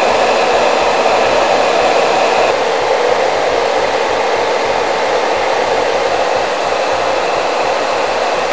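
Handheld hair dryer running steadily, a loud even rush of air, with a faint high whine that drops away about two and a half seconds in.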